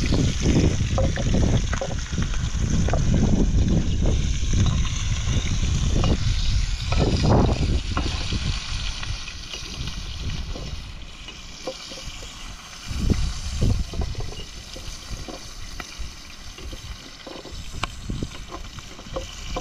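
Running water with a loud, uneven low rumble in the first half that eases off about halfway through, followed by scattered light knocks and clicks.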